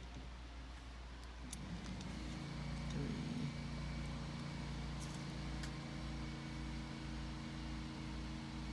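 Steady low motor hum, engine-like, that sets in about two seconds in and holds, with a few faint small clicks over it.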